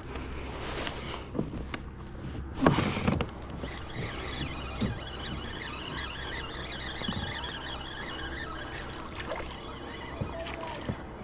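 Daiwa BG spinning reel being wound as a hooked fish is fought from a kayak, with rapid fine ticking through the middle. There is one loud knock or splash about two and a half seconds in.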